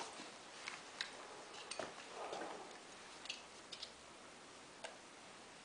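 Faint, irregular clicks and ticks, about a dozen scattered over a few seconds, with a brief soft rustle about two seconds in.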